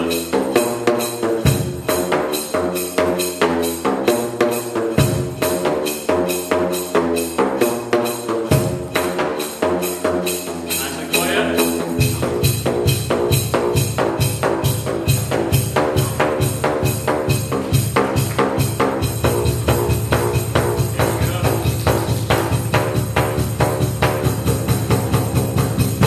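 A home-made drum instrument of plastic drain pipes, struck with flip-flops so the pipe openings give pitched, booming notes, playing a dance tune at a fast, even beat. About twelve seconds in, the low end gets heavier and the music louder.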